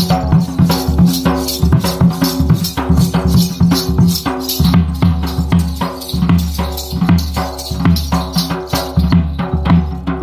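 Sambalpuri dhol, a large double-headed barrel drum, beaten by hand in a fast, even rhythm. A melody instrument holds steady notes over it.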